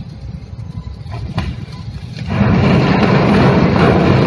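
Low wind rumble on the microphone, then about two seconds in a sudden loud crashing and grinding noise that carries on, as the container ship's steel bow strikes and scrapes the quay crane.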